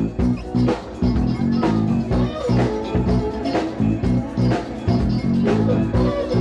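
Live band music with electric guitar and drum kit over a steady beat.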